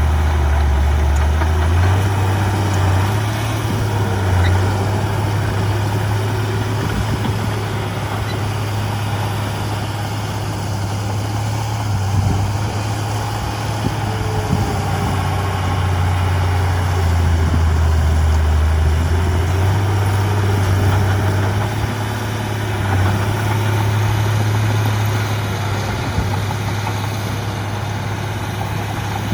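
Heavy diesel engine of earthmoving machinery running steadily, its low hum stepping up and down in pitch several times as the engine load changes.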